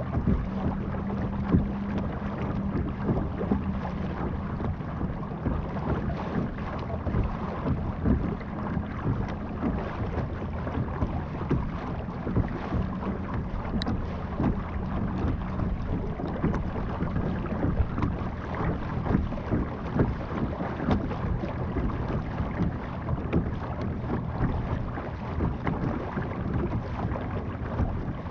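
Motorized Vibe Yellowfin 100 kayak under way: a steady low motor hum under the constant splash and slap of water along the hull, with some wind on the microphone.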